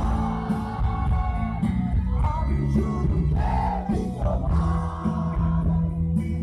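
Live rock band performing a Bengali song: singing over electric guitar, bass and drums, loud and heavy in the bass, heard from within the crowd.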